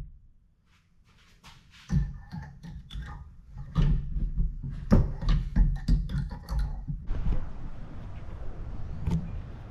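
Wooden boards being handled and set in place, giving a run of irregular knocks and thunks. About seven seconds in, a steady hiss of background noise takes over.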